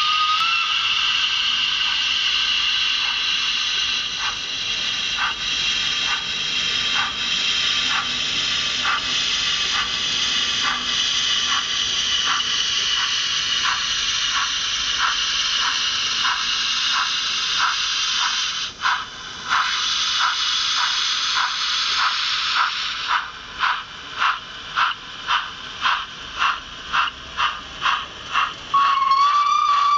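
Sound-decoder steam effects from an HO-scale model of an SNCF 141 E steam locomotive: a steady steam hiss with rhythmic chuffs, about one a second, quickening later to about two a second. Near the end a steam whistle sounds.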